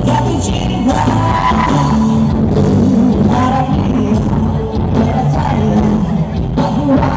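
Music with a singing voice over a bass line that moves between held notes.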